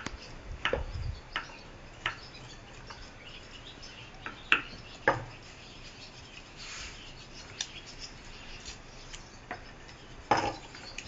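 Scattered light clicks and knocks of a ceramic plate and fingers against a terracotta pot as chopped celery is pushed off the plate into it, with a soft brief scrape in between.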